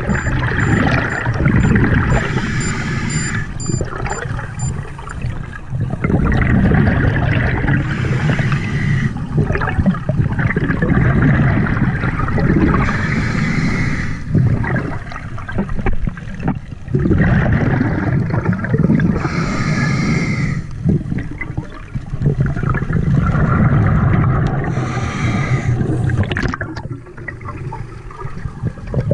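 Scuba regulator breathing underwater. A short hiss of inhaled air comes about every five to six seconds, between stretches of gurgling, rushing exhaled bubbles.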